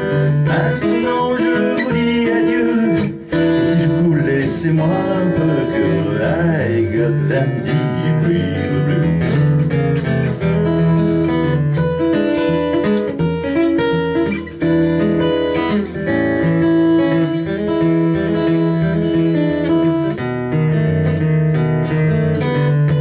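Steel-string acoustic guitar played solo, an instrumental break in a folk-blues song, chords and bass notes moving in a steady rhythm.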